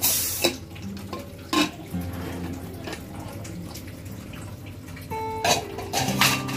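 Aluminium pressure cooker lid clanking and scraping as it is worked out of the pot, then a steel ladle clinking against the pot while stirring the wet curry, with a few sharp metal knocks. Soft acoustic guitar music plays underneath.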